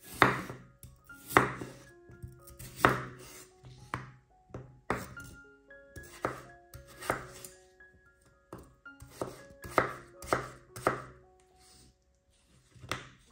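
A kitchen knife slicing through a peeled raw potato on a wooden cutting board: about a dozen separate cuts, roughly a second apart, each ending with a sharp knock of the blade on the board, with a pause near the end. Soft background music with light mallet-like notes plays underneath.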